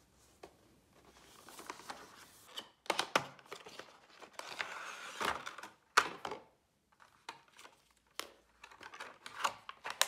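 Retail packaging of a power bank being opened and its plastic wrapping handled: crinkling and tearing with sharp clicks, pausing briefly about two-thirds of the way through.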